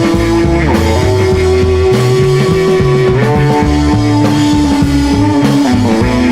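Instrumental break of a 1960s psychedelic rock song: long held lead notes stepping to new pitches every second or two over bass and drums, with no singing.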